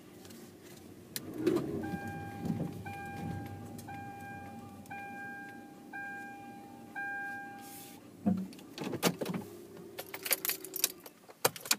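A car's warning chime sounds six times in a row, each tone about a second long, over the low hum of the car's engine. Near the end come a jangle of keys and some clicks.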